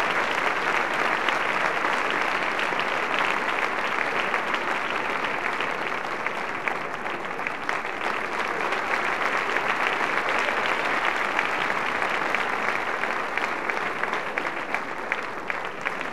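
Large audience applauding steadily: a dense, continuous patter of many hands clapping.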